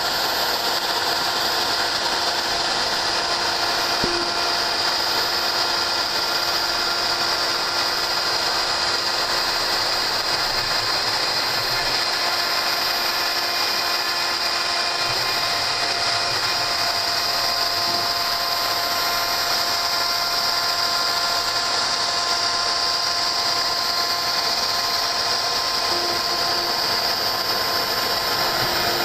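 Home-built CNC router running steadily as it machines: a constant high whine from the spindle, with a few steady lower tones from the machine's drives underneath.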